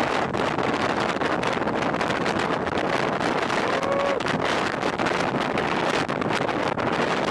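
Wind buffeting the camera microphone: a steady rushing noise with rapid gusty flutter and no letup. A short faint tone rises and falls about four seconds in.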